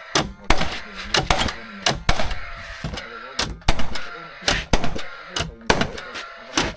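Nailing into timber framing: a run of sharp, separate impacts, about two a second at uneven spacing, some in quick pairs.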